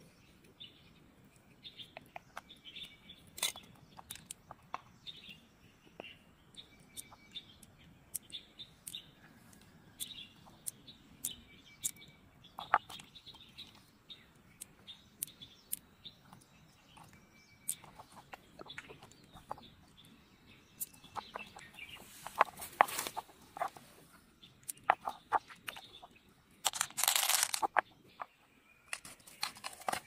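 Close handling of an opened freshwater mussel and its pearls: scattered sharp clicks and taps of pearls and shell, with small wet tearing sounds from the flesh, and birds chirping in the background. A longer rustling burst near the end.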